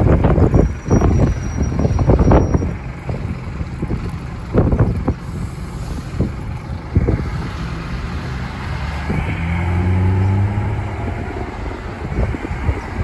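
Bus engine running and pulling away, its pitch rising a little about two-thirds of the way through. Wind buffets the microphone hard in the first few seconds, with a thin high whine over it.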